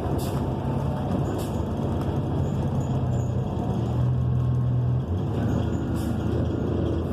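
Cabin sound of a 2014 New Flyer XN40 transit bus under way: its Cummins Westport ISL G natural-gas engine runs with a steady low drone, and the engine note changes about five seconds in. A few brief rattles sound over it.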